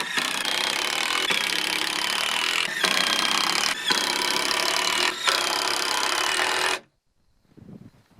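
Power drill running under load into the door's wooden edge in one long run of about seven seconds, with three brief dips, then stopping.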